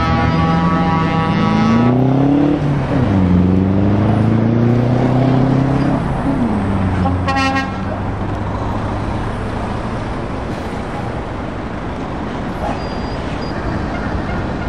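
A truck air horn holds a long blast that stops about two seconds in. Over it, a heavy truck's diesel engine pulls away, its note rising and then dropping twice as it shifts up through the gears. A short horn toot comes about halfway through, then steady engine and road noise of passing trucks.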